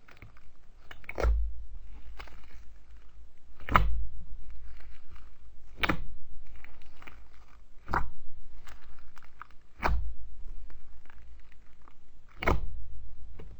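Slime being worked by hand, with six sharp snaps about two seconds apart and faint crackling between them.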